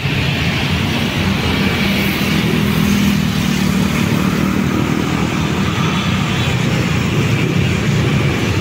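Busy road traffic: many motor scooters, motorcycles and cars passing close by, a steady mix of engine rumble and tyre noise.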